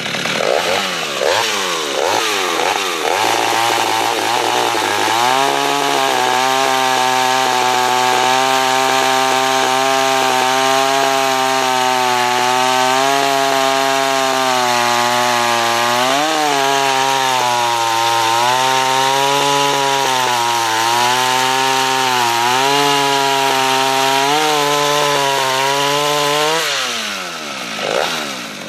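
Zid Taiga 214 two-stroke chainsaw revving, then cutting through a thick log at full throttle for about twenty seconds, its pitch dipping now and then as the chain bites. Near the end the pitch falls as the throttle is released.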